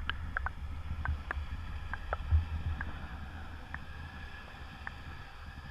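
Muffled underwater sound picked up by a submerged camera: a steady low rumble of moving water with a scattering of small, irregular clicks.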